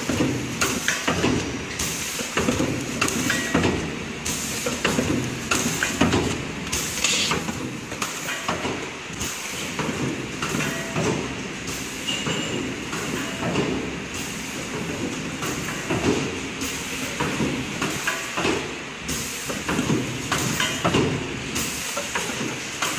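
Heat-transfer printing machine for soft plastic tubes running: a continuous mechanical clatter of many quick clicks and knocks.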